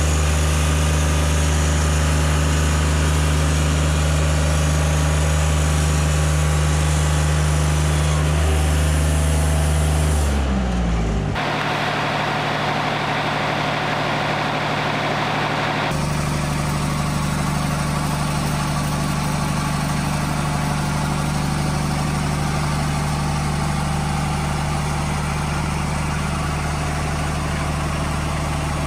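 Wood-Mizer LT40 Wide hydraulic bandsaw mill's engine running steadily while sawing a poplar log; about ten seconds in the engine note drops in pitch, then runs on steady.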